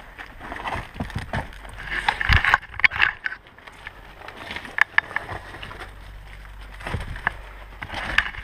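Irregular rustling, scraping and knocks of a person clambering in and moving through debris, with a few sharper clicks and thuds.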